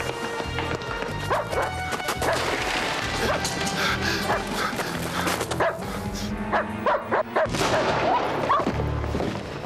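German shepherd barking and yelping in short repeated calls over background music.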